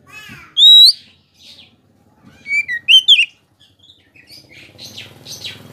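Oriental magpie-robin singing: loud, clear whistled phrases that glide up and down, one about half a second in and a quick run of notes from about two and a half to three seconds, with softer chirps between.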